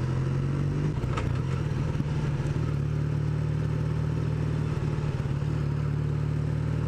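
Kawasaki 440 LTD cruiser's parallel-twin engine running steadily while riding, its note wavering briefly a second or two in.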